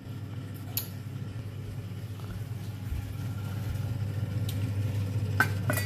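A steady low mechanical hum that grows louder, with a few light clicks, two of them close together near the end.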